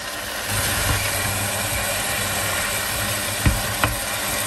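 Pork ribs searing in a stainless steel pot on an induction hob, a steady sizzle, with two light knocks of wooden chopsticks against the pot about three and a half seconds in.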